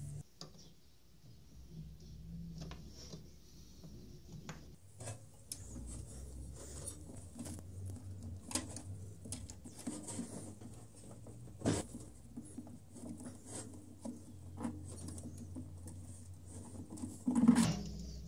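Scratching, scraping and small clicking of hands and tools working on washing machine parts, with a sharp knock about twelve seconds in and a louder clatter near the end.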